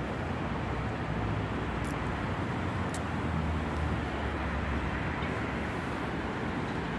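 Freight train of tank wagons rolling past close by: a steady rolling noise of wheels on the rails. Two faint high clicks come about two and three seconds in.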